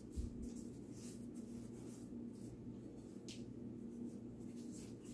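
Hands rubbing, pressing and sprinkling flour onto a raw fish fillet on a plate: faint soft scraping and rustling, with one low bump about a quarter second in.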